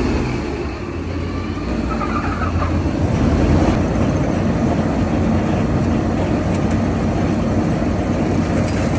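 Fortschritt E516B combine harvester running steadily on a test run of its freshly repaired transportation-line chain.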